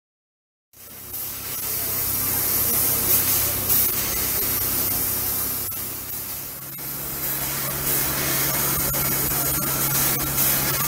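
Steam locomotive venting steam: a loud steady hiss that starts suddenly about a second in. A low steady hum joins it about two-thirds of the way through.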